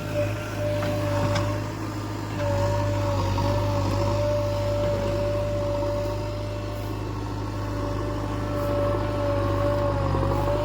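JCB 3DX backhoe loader's diesel engine running steadily while it works, with a high, steady whine over the low engine hum. The whine drops out for about half a second around two seconds in.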